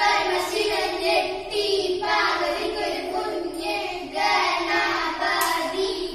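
Girls chanting a Malayalam counting-out rhyme in a sing-song voice, the kind used to pick who will be 'it' in hide-and-seek, in even rhythmic phrases.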